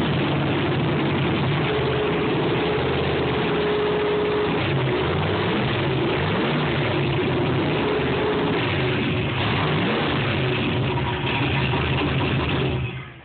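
Ford Mustang's engine idling steadily after a cold start, its note holding level, then dropping away right at the end.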